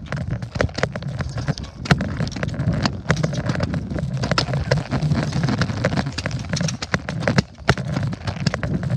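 Handling noise from a phone carried while walking: many quick, irregular knocks and rubs against the microphone over a steady low rumble.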